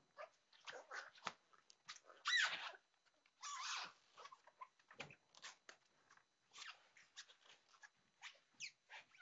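Footsteps on a wooden hall floor, with irregular light taps, a brief rustle and a couple of short falling squeaks.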